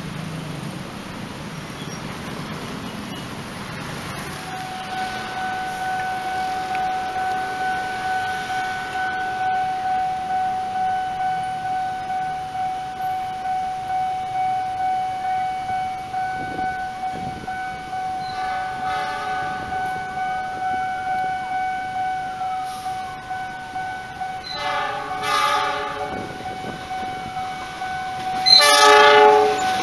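A railway level-crossing warning signal sounds a steady electronic tone that pulses about twice a second, starting a few seconds in. Near the end an approaching KAI diesel locomotive sounds its horn twice; the second blast is the loudest.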